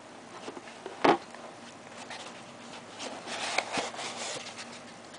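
Soccer boots and their screw-in studs being handled: a sharp knock about a second in, then rustling and scraping about three to four and a half seconds in.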